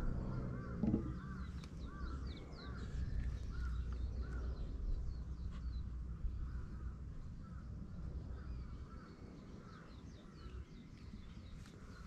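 Crows cawing over and over, with smaller birds chirping higher up.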